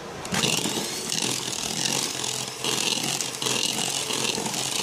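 Electric hand mixer starting a moment in and running, its beaters whisking thick, fluffy egg-and-sugar sponge batter with freshly added oil. The whir swells and dips several times as the beaters move through the batter.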